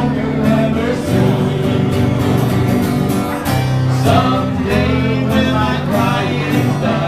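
Live male singing into a microphone with strummed acoustic guitar, a slow country-pop song carried over long held low notes.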